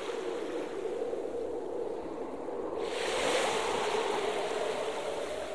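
Ocean waves washing in: a steady surf hiss that swells about three seconds in, as a wave breaks.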